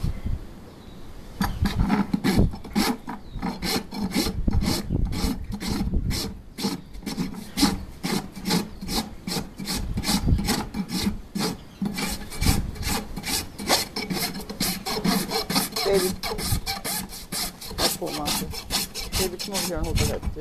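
Farrier's hoof rasp filing a horse's hoof on a hoof stand: quick, steady back-and-forth strokes, a few a second, starting about a second and a half in, as the trimmed hoof wall is dressed down.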